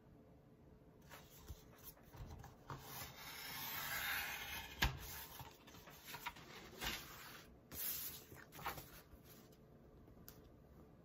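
Sliding paper trimmer cutting black cardstock: a rising scrape as the cutter is drawn along the sheet, with one sharp click about five seconds in. Then paper rustling and light taps as the cut sheet is handled.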